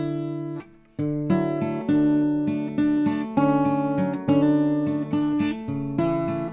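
Acoustic guitar playing a run of chords, miked close to the sound hole, with a brief pause about half a second in before it picks up again.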